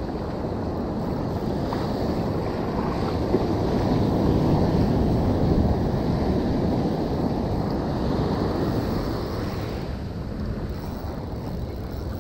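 Shallow surf rushing and foaming up the beach, with wind buffeting the microphone. The wash swells about four seconds in and eases off toward the end.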